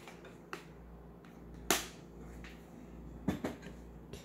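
A handful of separate sharp clicks and taps from a metal measuring spoon and a plastic ingredient canister being handled over a plastic mixing bowl. The loudest tap comes about halfway through and a quick pair follows later, over a faint steady hum.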